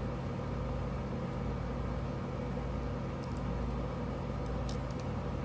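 Steady low hum, with a few faint clicks in the second half as the metal and plastic parts of a Beyblade top are handled.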